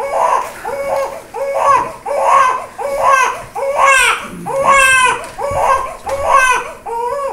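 Newborn baby boy crying hard during his circumcision, in a steady run of short wails about one and a half a second, with two longer, higher-pitched wails near the middle.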